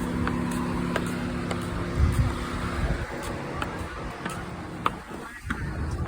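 An engine humming steadily and fading out about two to three seconds in, over outdoor background noise with a few scattered clicks.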